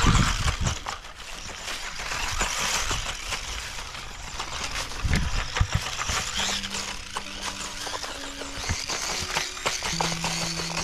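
Tamiya Grasshopper 2 RC buggy with a brushed 28T electric motor driving over rough ground strewn with sticks and debris. The motor and drivetrain run with a continuous hiss, and the wheels and chassis clatter and click over the debris. There are low thumps at the start and about five seconds in.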